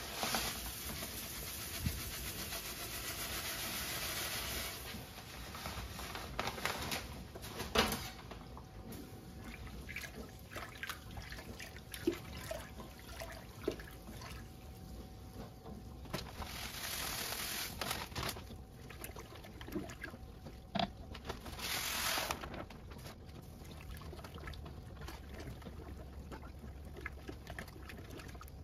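Vienna malt poured from a bag into the hot water of a brew-in-a-bag kettle while mashing in: a steady hissing pour for the first few seconds. Then a paddle stirs the mash, with small splashes and light knocks, and two more short rushes of pouring.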